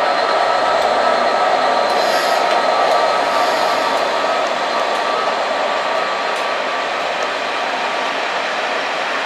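Class 67 diesel locomotive's EMD two-stroke V12 engine running as it passes close by hauling coaches: a loud, steady drone with a faint whine, easing slightly in the second half.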